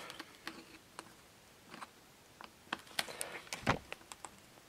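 Flat-blade screwdriver working at a stuck screw in a lawnmower carburetor: a few scattered light metallic clicks and scrapes as the tip bites and slips, the loudest a little over three and a half seconds in. The screw will not come out.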